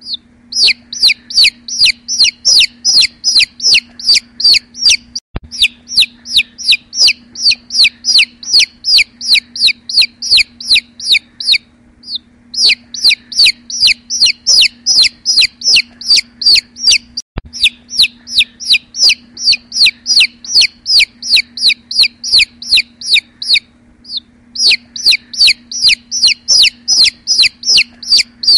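Newly hatched chicks peeping: a fast, steady run of high-pitched "chip chip" calls, about three to four a second, pausing briefly twice.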